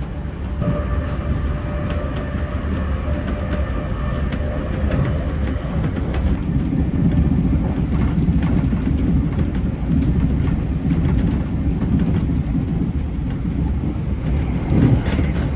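Class 387 electric multiple unit running at speed, heard from inside the carriage: a steady low rumble with a faint whine that fades after about five seconds, the rumble growing louder about six seconds in, with scattered clicks from the track.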